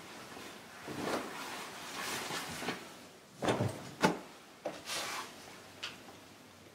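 Handling noises at an office desk as a wrapped present is picked up: a few soft knocks and taps, the sharpest about four seconds in, and a brief rustle of wrapping paper.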